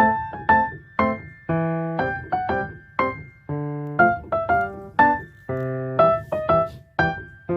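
Background music: light keyboard or electric-piano melody of short struck notes over held chords, at an even, bouncy pace.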